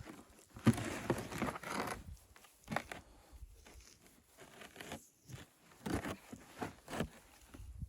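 Irregular crunching and crinkling: a dense scratchy stretch over the first two seconds, then a run of separate sharp crunches.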